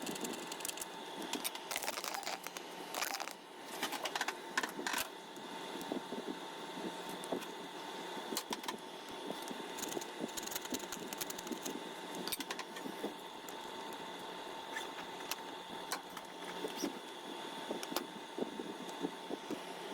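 Scattered small clicks and scrapes of hands handling the parts of a toy keyboard, over a steady faint hum.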